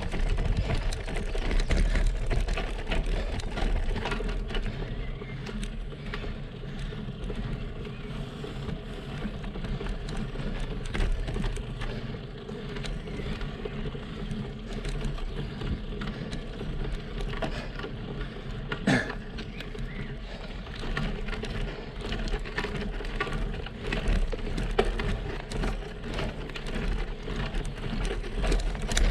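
Road bike climbing slowly over cobblestones: the tyres and frame rattle with a steady patter of small knocks, and one sharper knock comes about two-thirds of the way through.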